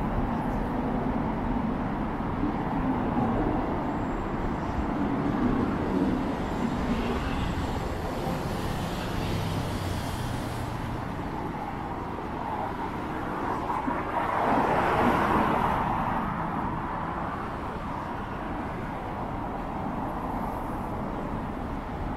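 Road traffic on a city street: a steady hum of cars, with a louder swell that rises and falls about two-thirds of the way through.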